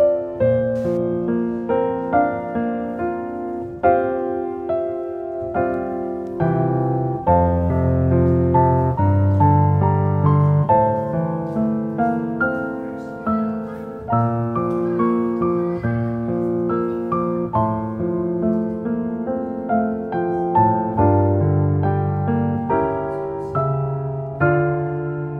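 Background piano music: a slow piece of chords and single melody notes, each note struck and fading.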